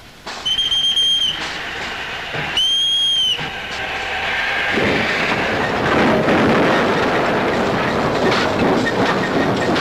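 Steam locomotive whistle giving two short blasts of one high tone, then the locomotive getting under way, its steam and running noise building up from about halfway through.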